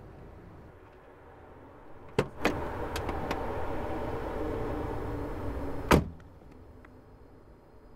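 A car door unlatches with a click about two seconds in and swings open. Steady background noise is louder while it stands open, and the door is slammed shut about six seconds in.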